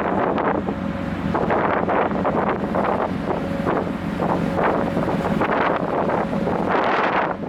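Wind buffeting the microphone aboard a car ferry under way, in uneven gusts, over a steady low drone from the ship.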